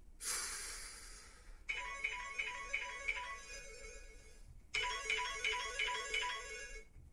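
Mobile phone ringtone: a short melody of quick repeated notes, playing twice with a brief pause between. A short burst of hiss comes just before the first ring.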